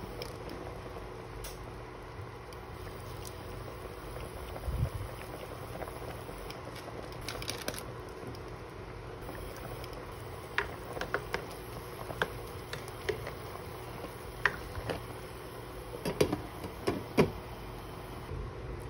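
Pot of chicken adobo simmering on the stove, bubbling faintly under a steady hum. In the second half come scattered sharp clinks and taps from the glass pot lid being handled and set back on.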